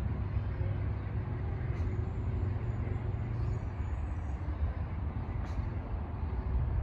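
Amtrak passenger train's bilevel Superliner cars rolling away on the rails: a steady low rumble of wheels and the receding train, with a faint high squeal a couple of seconds in.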